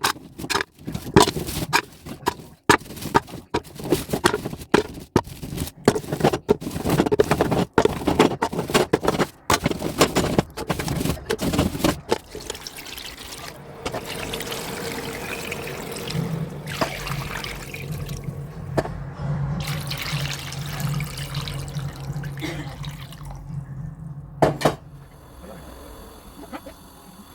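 Water pouring and splashing, with many irregular clicks and knocks for about the first twelve seconds, most likely plastic electrical plugs knocking about in the water. It then settles into steadier watery noise with a low hum from about sixteen seconds in, and goes quieter near the end.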